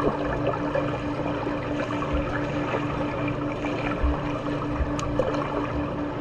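Water splashing and sloshing in a swimming pool, with a steady low hum that pulses rapidly underneath.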